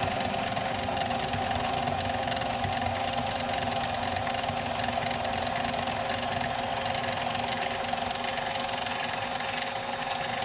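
Harbor Freight mini lathe running steadily with its motor hum and a fixed higher tone, taking a cut of about 20 thousandths down the outside of a metal clevis blank.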